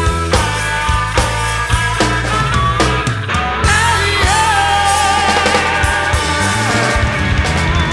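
Rock song with electric guitar and bass, with a sung or bending lead line over a steady beat.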